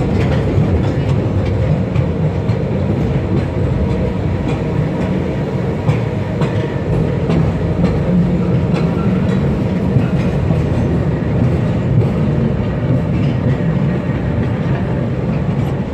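Postojna Cave's tourist train running along its rails: a steady low rumble with scattered clicks from the wheels.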